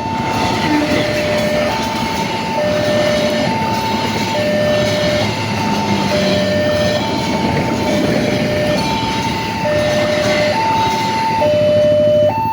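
Electronic two-tone warning alarm at a railway level crossing, alternating high and low, each tone lasting a little under a second. A train passes over the crossing at the same time, its rolling noise spread over the alarm.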